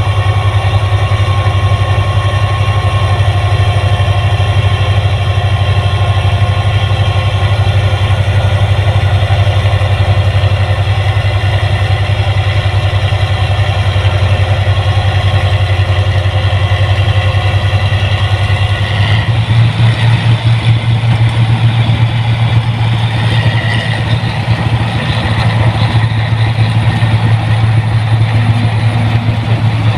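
Rice combine harvester's engine running loudly and steadily. About two-thirds of the way through the sound changes, taking on a heavier, pulsing low note.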